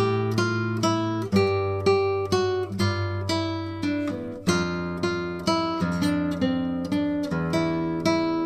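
Background music: an acoustic guitar picking a steady run of notes over held bass notes.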